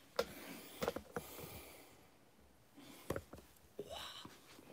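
Scattered handling knocks and taps as the camera is picked up and repositioned, with a short vocal sound from the person near the end.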